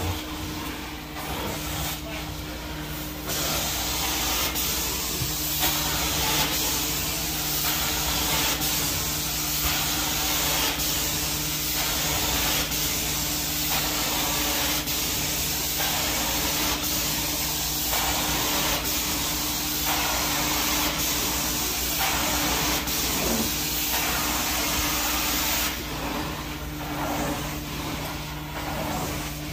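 Carpet steam-cleaning (hot water extraction) wand spraying and vacuuming water out of the carpet: a loud hiss that swells and dips about once a second with each pass, over the steady hum of the extraction machine. The hiss stops near the end while the machine hum carries on.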